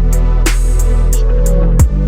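Background music: electronic track with a steady bass line, ticking hi-hats and a kick drum hit near the end.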